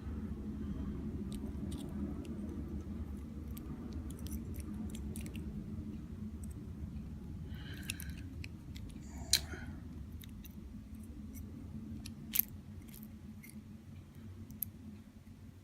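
Small metallic clicks and short scrapes of padlock parts being worked with a plug follower, a sharper click about two-thirds of the way through, over a steady low hum.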